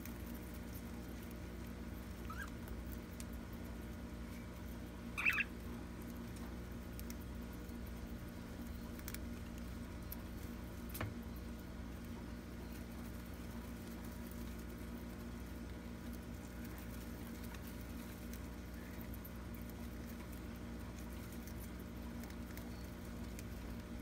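Budgies nibbling and pecking at baby spinach leaves, a faint patter of small clicks and rustles over a steady background hum. One short budgie chirp stands out about five seconds in, with a fainter chirp a little before it.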